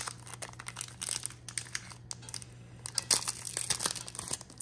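Foil wrapper of a Pokémon trading-card booster pack crinkling and tearing as it is opened by hand, in irregular crackles that get busier about three seconds in.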